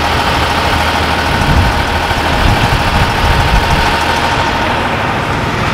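Mercedes-Benz Unimog 1300 L fire engine's six-cylinder diesel engine running steadily as the truck drives by at low speed.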